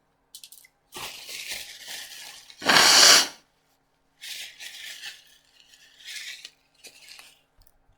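Takeout food packaging and napkins being handled: several bursts of rustling and crinkling, the loudest about three seconds in.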